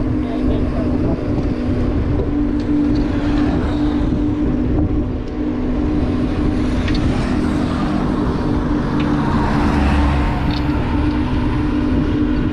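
Motorbike engine running at a steady cruise with a constant drone, under heavy wind and road rumble on the microphone.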